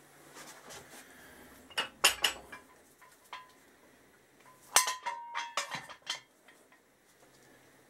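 Metal parts clinking and knocking as a replacement rear shock is handled and offered up into a motorcycle's swingarm and frame. There are a few sharp clinks about two seconds in, then a louder cluster of ringing metallic clinks around five seconds in.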